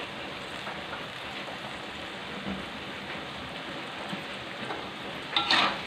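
Stir-fry of green beans, tempe and squid sizzling steadily in a metal wok over the heat. A short, louder sound near the end.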